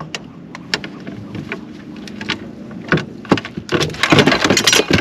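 A freshly landed halibut flopping in the boat: scattered knocks and slaps that build to a rapid flurry of thrashing near the end. A boat engine hums steadily underneath.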